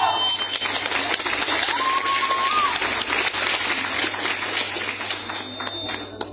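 Audience clapping as the dance music stops, fading away about six seconds in. One short, high call rises out of the clapping about two seconds in.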